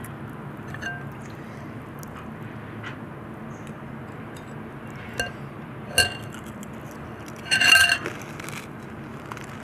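A glass bowl clinking with a brief clear ring: a light tap about a second in, two more around five and six seconds, then a louder run of clinks near the end.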